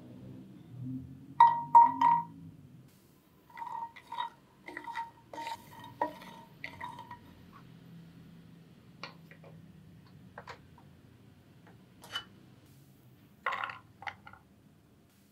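Walnut halves dropping into an empty nonstick frying pan: a run of clicks, each with a short ringing note from the pan, loudest about a second and a half in. Near the end, a quick clatter as walnuts are tipped from a small glass bowl onto a wooden cutting board.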